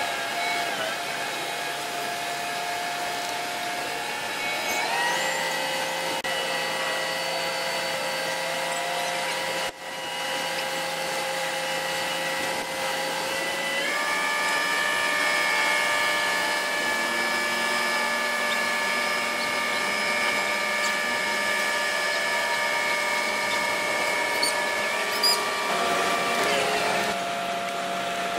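Mobile crane's engine and hydraulics running under load while it holds a houseboat on its slings. The sound is a steady mechanical whine that shifts to a new pitch a few times.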